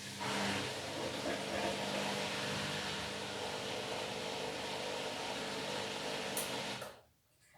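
Washing machine running with a loud, even rushing noise that cuts off abruptly near the end.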